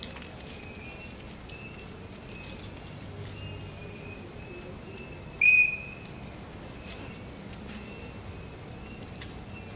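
Crickets chirping steadily in a high, pulsing trill, with faint short high calls recurring throughout. About five and a half seconds in there is one brief, loud, high whistle-like note.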